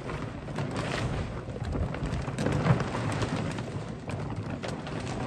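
A large canvas tarpaulin rustling and crackling as it is dragged and spread over a low shelter, with a low rumble underneath.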